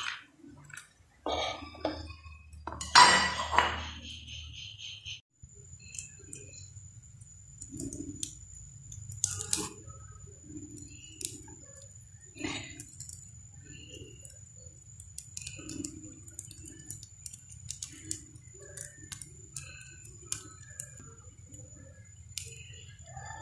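Kitchen utensils and dishes clinking, with a loud clatter about three seconds in, then scattered faint ticks and light knocks.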